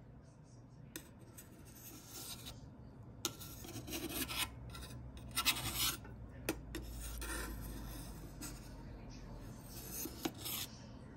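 Serrated knife scraping along the inside edge of an aluminium baking pan to loosen a baked leche flan: a series of short, uneven scrapes with a few sharp clicks of blade on metal.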